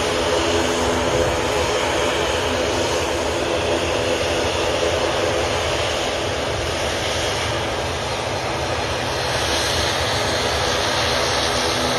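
ATR 72 twin-turboprop airliner running its engines as it rolls along the runway on departure: a steady propeller drone with a row of humming tones over a wide rush of noise.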